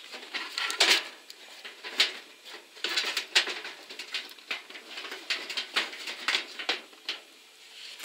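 Sheet-metal outer cover of a paraffin heater clanking, rattling and scraping as it is worked off the heater's base and lifted away, with irregular sharp knocks throughout.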